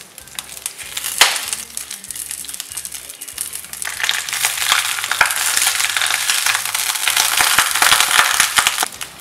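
Pak choy sizzling and crackling in hot ghee in a cast-iron skillet as the leaves are laid in. A sharp crackle comes about a second in, and the sizzle grows louder and denser from about four seconds.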